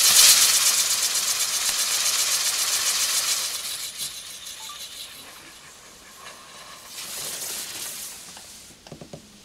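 Chinese lantern firework novelty spinning on its string and hissing loudly as it throws sparks. The hiss fades after about three and a half seconds, comes back more quietly for about a second later on, and a few small crackles follow near the end.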